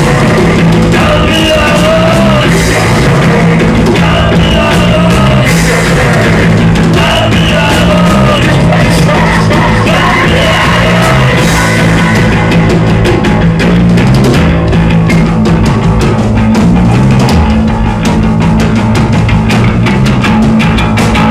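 Live rock band playing loud: an electric bass guitar holding low repeated notes over a drum kit, with singing through roughly the first half.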